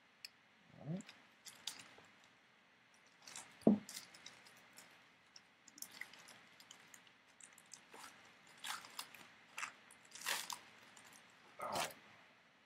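Foil trading-card pack wrapper crinkling and rustling as it is handled and opened, along with cards being shuffled; irregular crackles, the loudest about four seconds in and near the end.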